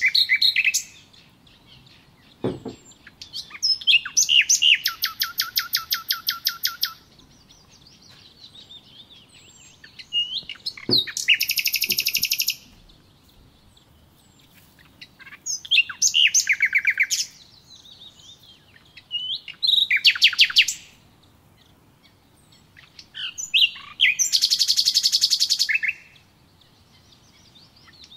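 A songbird singing in phrases of fast, high trilled notes, each lasting one to three seconds and coming every few seconds. Two dull low knocks fall between the phrases.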